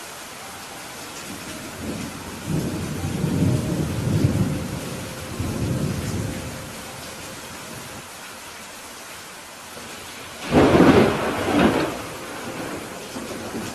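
Steady rain falling, with thunder rumbling low from about two seconds in to about seven, then a louder, sharper thunderclap about ten seconds in.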